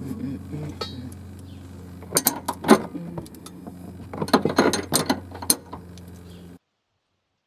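Ratchet spanner clicking in two short runs as a strut-top nut is worked loose. The sound cuts off abruptly near the end.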